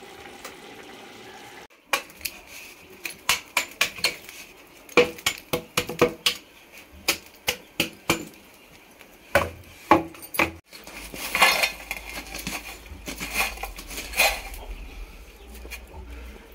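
A metal rod clinking and knocking against burning firewood, the clay wood stove and a metal plate as the fire is raked out from under the biryani pot: a run of sharp clicks and knocks, then rougher scraping as the embers are pulled onto the plate. Taking the fire out from under the pot leaves the rice to finish on dum.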